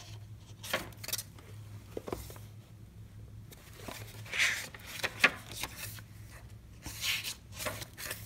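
Pages of a Canson sketchbook being flipped and handled: a series of short paper rustles and swishes as the leaves are turned and smoothed down.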